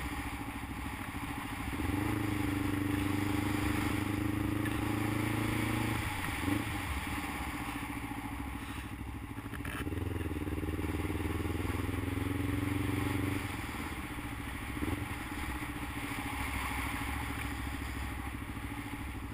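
Motorcycle engine at low road speed. It pulls under light throttle twice, each time for about four seconds with a slight rise in pitch at the start, and runs quieter while coasting in between, over wind noise.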